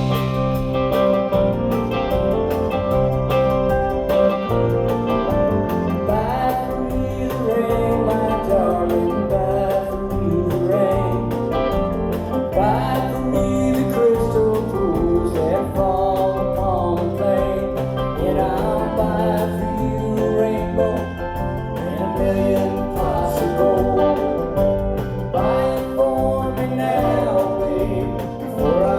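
Live country-folk band playing with lead and harmony vocals singing over acoustic guitars, bass and drums.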